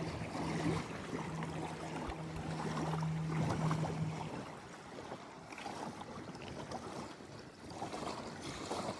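Steady low hum of a boat motor that cuts off about four seconds in, over water and wind noise.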